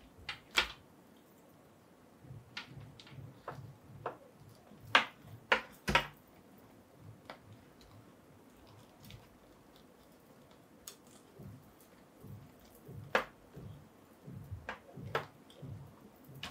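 Scattered small clicks and taps from handling a sixth-scale action figure and its accessories, with soft handling noise between them. The sharpest clicks come about half a second in, around five to six seconds, and near the end.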